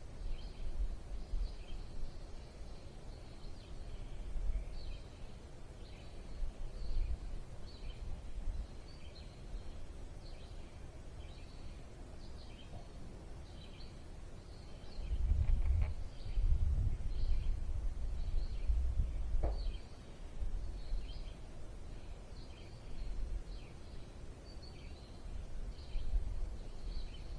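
Small birds chirping over and over with short high notes, over bursts of low rumble that are loudest about halfway through.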